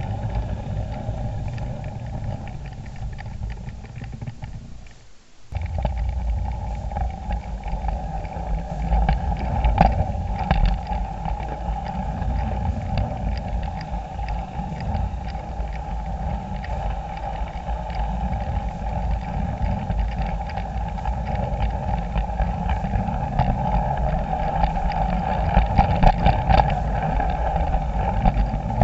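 Model train running along the track as heard by the camera riding on it: the small electric motor hums steadily over a low rumble of wheels on rail, with scattered clicks from joints and pointwork. The sound drops away briefly about five seconds in, then carries on.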